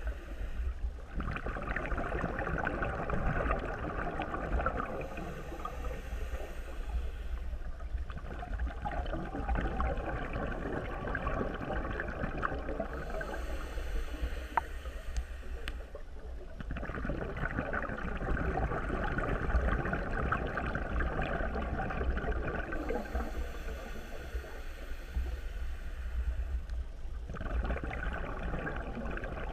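Muffled underwater water noise picked up through a GoPro's waterproof housing: a steady rushing and gurgling with a low rumble. It grows louder and softer every few seconds.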